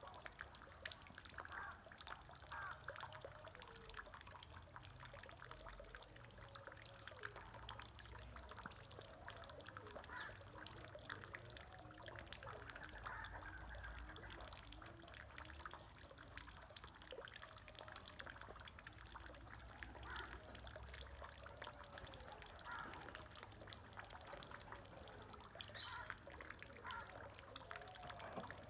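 Quail chicks calling faintly: many short rising-and-falling peeps and chirps in quick succession, over a dense patter of small clicks.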